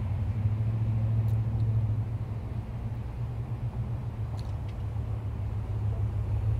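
Motor vehicle engine running close by: a steady low rumble, a little louder in the first couple of seconds.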